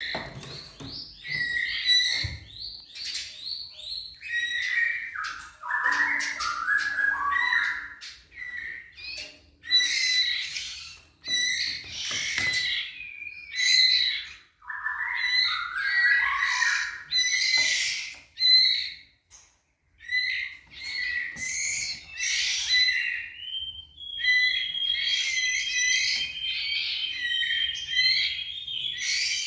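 A songbird singing a long run of varied phrases: whistles, trills and chirps separated by short pauses, some dipping lower into a warble, and a long steady whistled note near the end.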